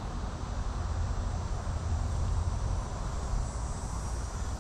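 Outdoor ambience: a steady low rumble, with faint, high-pitched insect trilling that grows clearer about halfway through.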